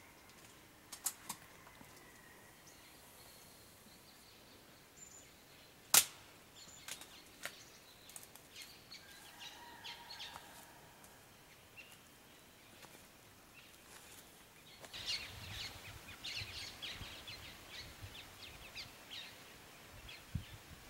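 Faint outdoor ambience with a few distant bird calls and scattered small clicks. One sharp snap about six seconds in is the loudest sound. A run of small crackles and clicks comes about three-quarters of the way through.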